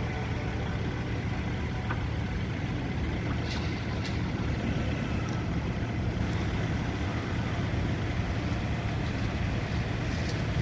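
Diesel engine of heavy construction machinery running steadily, with a few faint sharp ticks about a third of the way in and again near the end.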